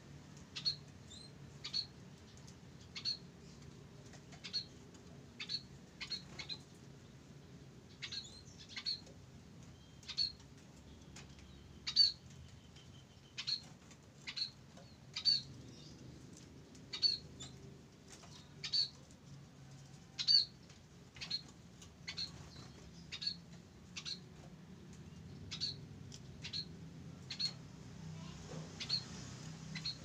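Caged munias giving short, high single call notes, about one a second and uneven in loudness.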